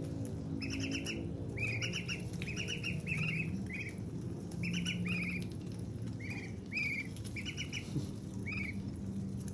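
Young white crested ducks peeping: about a dozen short, high, slightly falling chirps, often two or three in quick succession, as they peck at a slice of watermelon held out to them.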